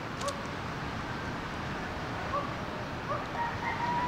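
Chickens clucking in short calls, then a rooster crowing in one long held call near the end, over a steady hiss.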